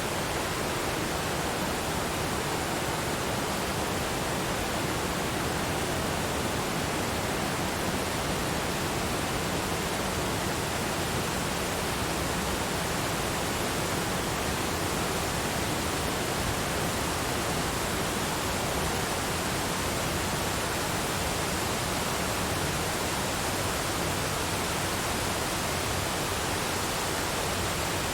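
Forest waterfall: water pouring and splashing in a steady, unbroken rush.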